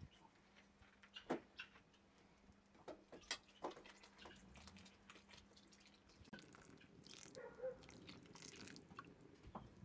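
Water poured in a thin stream from a plastic bottle into a steel pot of simmering rice, faintly splashing, mostly in the second half. Scattered faint sharp clicks come before and between.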